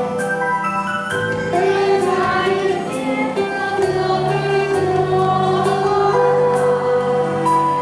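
A choir singing in held notes over instrumental backing, with a light regular beat about once a second.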